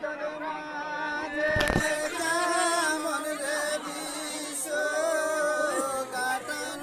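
Voices chanting a devotional song in a wavering, drawn-out melody over a steady held drone note, the kind of Bishohari song sung to the snake goddess Manasa. A single sharp knock sounds about a second and a half in.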